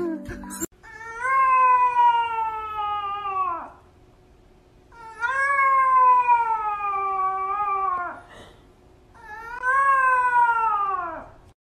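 A puppy howling: three long, high howls a few seconds apart, each sliding down in pitch as it trails off.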